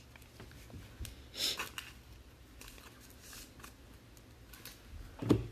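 Trading cards being handled and slid: a soft swish about a second and a half in and faint ticks, then a short low thump near the end.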